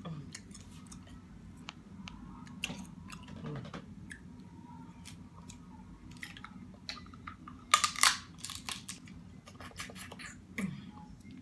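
Close-up eating sounds from a seafood boil: chewing with scattered sharp clicks and crackles from handling the shellfish, and a loud cluster of cracks about eight seconds in.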